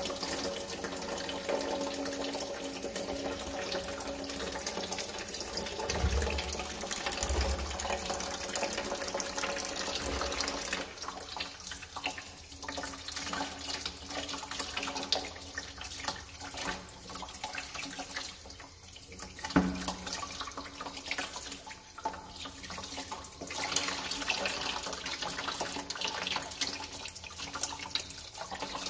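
Thin stream of water pouring from the drain hole at the bottom of a chrome sink trap and splashing into a plastic bucket as the clogged trap is flushed. A few low thumps sound in the first third, and one sharper knock about two-thirds of the way through.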